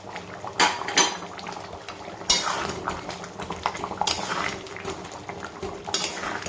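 A spoon scraping and clinking against a kadai in about five separate strokes, over the steady bubbling of chicken curry simmering after the spice powders have gone in.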